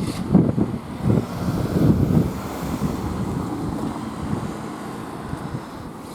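A train passing over a level crossing, its wheels thumping over the rail joints in a run of heavy beats over the first two seconds, then a steadier rumble that fades. Wind buffets the microphone.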